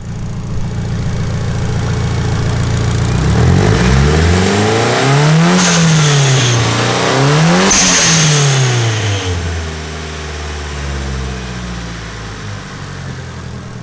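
Nissan SR20DET turbocharged inline-four, warm at operating temperature, idling, then revved twice by hand at the throttle: each rev climbs, peaks with a hiss and falls straight back, before it settles to idle again. It sounds nice and healthy.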